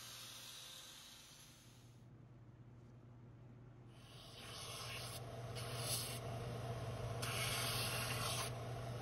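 Faint room noise, then from about four seconds in a bench belt sander running with a steady hum, with several short bursts of grinding hiss as a small cut steel part is pressed against the belt to deburr it.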